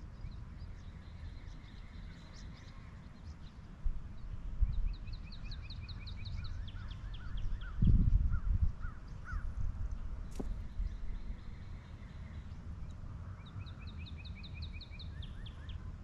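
Wild songbirds singing, with quick trills of repeated notes twice and other calls between, over a steady low rumble. A louder low thump comes about 8 s in and a sharp click about 10 s in.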